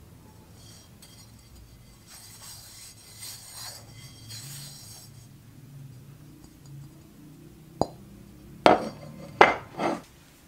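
Cast iron pan lid handled by hand, with a faint rubbing hiss, then set down on a tabletop: a sharp click, then three heavy knocks about half a second apart near the end as it settles, the loudest sounds here.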